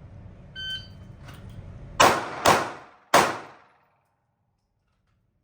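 A shot timer beeps once as the start signal, then a handgun fires three shots, each followed by a short ringing decay.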